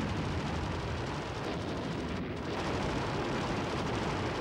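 Steady, dense rumble of battle sound effects, explosions and gunfire blended together with no single shot standing out.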